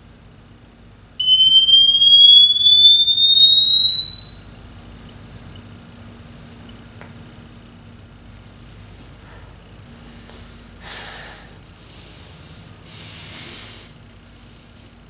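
Loud electronic sine-wave tone sweeping steadily upward from high to very high pitch for about eleven seconds, then cutting off abruptly. A brief rustling noise follows near the end.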